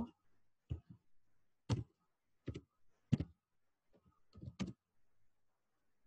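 Scattered sharp clicks at a computer, about six over several seconds, two of them in quick succession a little past the middle.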